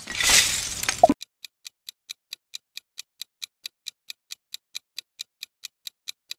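A quiz countdown timer: a clock ticking evenly at about four to five ticks a second, after a short hissing whoosh in the first second.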